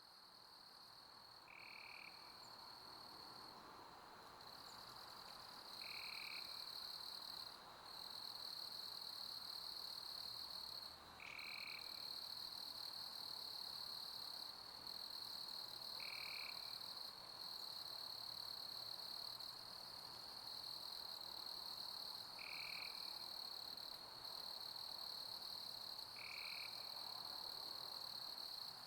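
Night chorus of crickets, a steady high trill with a few brief dropouts, fading in over the first few seconds. A short, lower call sounds six times, about every four to six seconds.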